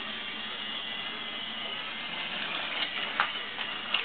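My Little Pony Friendship Express toy train's small battery motor and plastic gears whirring steadily as it runs around its plastic track, with a few sharp clicks near the end.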